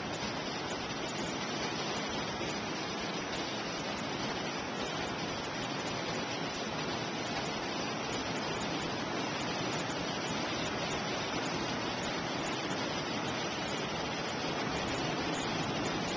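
Ocean surf heard from high above the beach, blended into one steady, even wash with no single wave breaks standing out.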